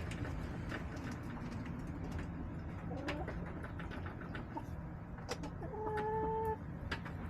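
Backyard hens in their coop, giving soft short calls and one held call about six seconds in, over scattered sharp taps and clicks and a steady low rumble.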